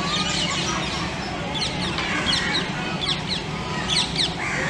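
Many small birds chirping, a busy run of short, quick falling notes, over a steady low background hum.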